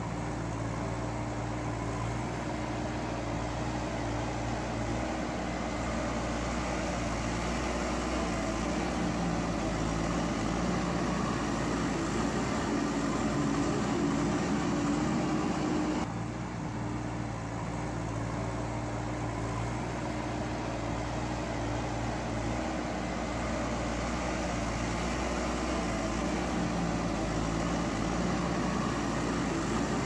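Diesel engine of a JCB backhoe loader running steadily, with a brief dip and break in the sound about halfway through.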